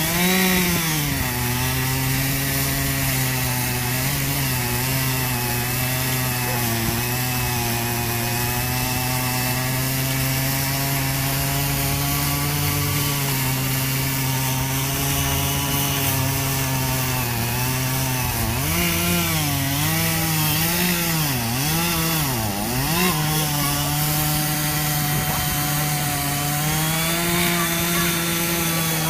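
Gasoline chainsaw running steadily while cutting into the base of a large dead tree trunk. About two-thirds of the way through, its engine pitch dips and recovers several times as the chain bites into the wood, then rises slightly near the end.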